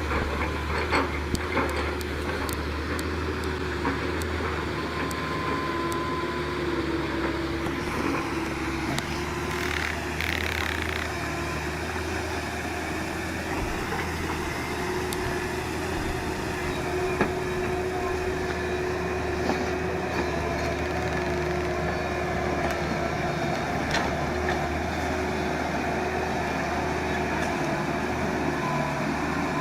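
Engine of a heavy vehicle running steadily with a low, even drone, with scattered light clicks and a brief hiss about ten seconds in.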